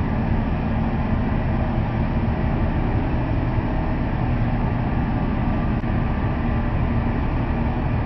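Olive oil mill machinery running steadily: a continuous low rumble with a faint steady hum.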